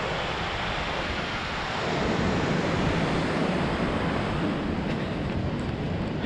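Steady rushing noise of falling water from a mountain waterfall and river, with wind buffeting the microphone; it grows slightly louder about two seconds in.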